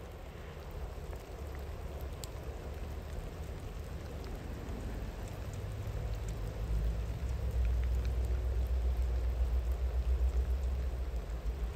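Steady rain falling, with a few sharper drop ticks. Under it, a low rumble from a distant train swells from about six seconds in and eases slightly near the end.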